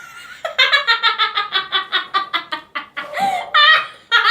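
Young girls laughing hard in rapid, high-pitched cackles, about five a second, then a longer shriek about three seconds in.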